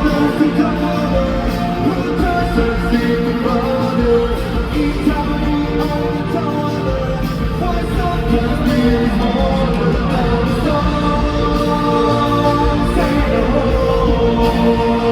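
A K-pop song performed loudly through a hall's sound system, with singing over the backing music.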